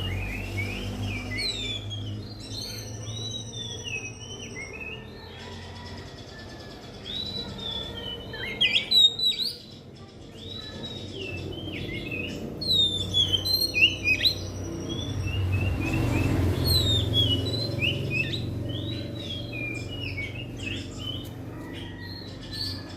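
Oriental magpie-robin singing a varied string of whistled phrases, the notes sliding up and down, with louder bursts near the middle. A steady low hum runs underneath.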